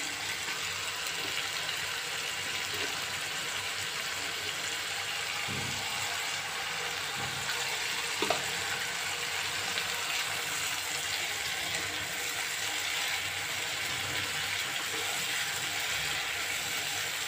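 Spice paste of ground onion, ginger-garlic and powdered spices sizzling and crackling steadily in hot oil in a non-stick pan as it is fried down (bhuna) until the oil separates. A couple of light clicks are heard about a third and halfway through.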